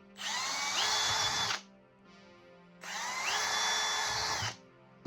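Power drill boring oversized screw holes through plywood: two runs, each spinning up to a steady whine, holding, then winding down.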